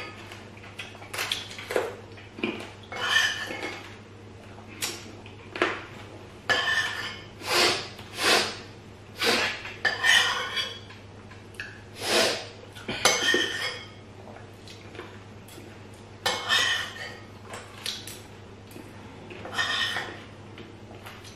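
Metal spoons clinking and scraping on ceramic plates of soup during a meal, in short irregular knocks, some ringing briefly.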